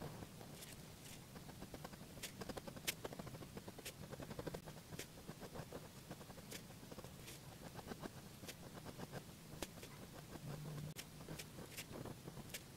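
Fine-tip pen drawing on paper: faint scratches and light taps of the nib, coming irregularly as small patterns are inked, over a low steady hum.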